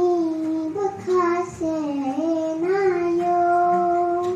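Young girl singing into a handheld microphone: a few short sung phrases, then one long held note near the end.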